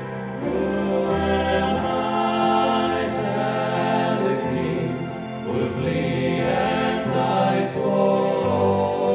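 Gospel hymn music: held chords under a slow line of choir-like singing.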